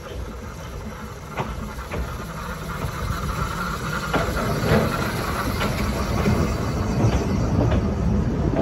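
Narrow-gauge steam locomotive hauling a passenger train, getting louder as it approaches and passes right beneath, with steam hissing as it goes under, then its carriages rolling past.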